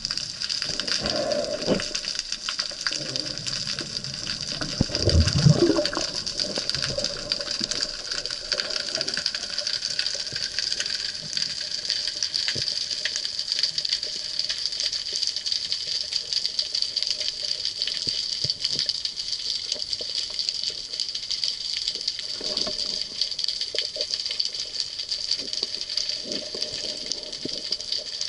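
Underwater sound heard through a camera housing during a spearfishing dive: a steady hiss full of fine crackling clicks, with a louder low gurgling rush of water about five seconds in.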